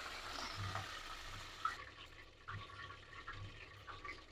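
Fenugreek leaves frying in hot oil: a faint sizzle that dies down about a second and a half in, leaving a few small crackles as the leaves crisp.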